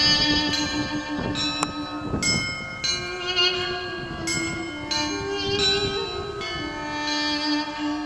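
Russian Orthodox monastery bells rung in a quick, uneven peal of several pitches, each strike ringing on. Beneath them a duduk holds long notes, stepping up in pitch about three seconds in and dropping back near the end.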